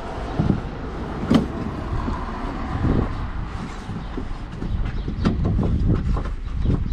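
A screwdriver prising the plastic push-in clips out of a Vauxhall Insignia's inner boot liner trim. The plastic scrapes and rustles, with a few sharp clicks as clips let go; the clearest is about a second in and another about five seconds in.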